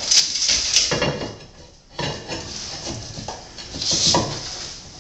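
Marble subway tiles clinking and scraping against each other and hard surfaces as they are handled and marked, with irregular knocks and rasping scrapes.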